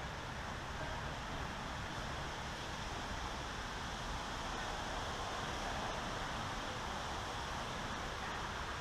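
Steady outdoor background noise: an even hiss with no distinct sounds standing out.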